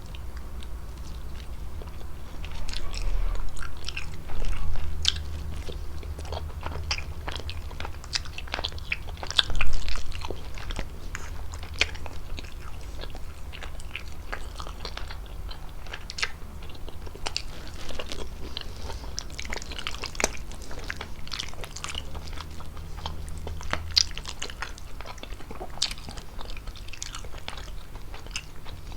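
Close-miked mouth sounds of someone eating chicken fettuccine: steady chewing with many small, irregular wet clicks and smacks. A few louder low bumps come about three to five seconds in and again near ten seconds.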